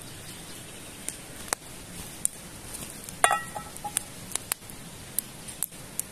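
Wood campfire crackling, with scattered sharp pops. About three seconds in, the steel frying pan gives a short ringing metallic clink.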